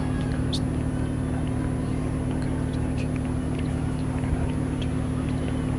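A steady low hum, with faint chirps of small birds now and then.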